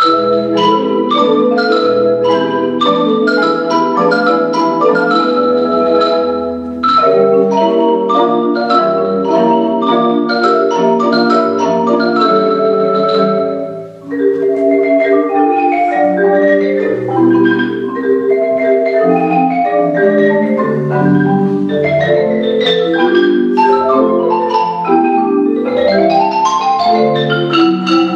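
Marimba ensemble of four players in a fast piece: quick runs of mallet notes over deep bass notes. The playing breaks off briefly about halfway, then resumes, with a rising run of notes near the end.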